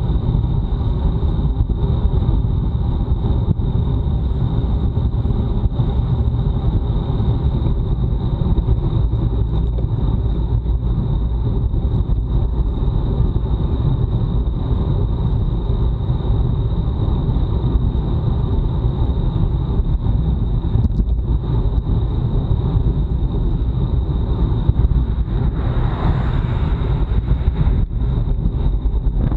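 Wind rushing over a bicycle-mounted action camera's microphone at time-trial speed, a steady low buffeting with road and tyre noise under it and a thin, steady high whine on top. Near the end something swells briefly and fades.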